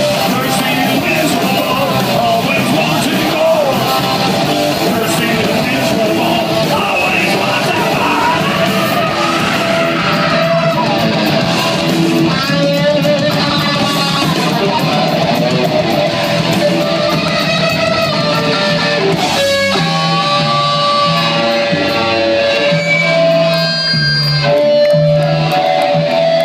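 Live hardcore punk band playing loud: distorted electric guitars, bass and drums with sung vocals. Picked up through a phone microphone in a concert hall.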